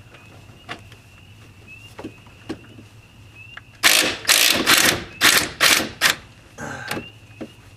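Ratchet wrench driving a 15 mm socket on a swivel head, clicking in quick strokes: a few faint clicks, then about five loud ratcheting bursts over two seconds and one more shortly after.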